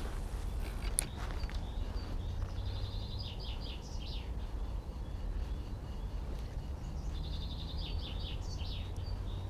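Songbirds singing: two runs of quick, high chirps and trills, one about three seconds in and another near eight seconds, over a steady low rumble. A single sharp click sounds about a second in.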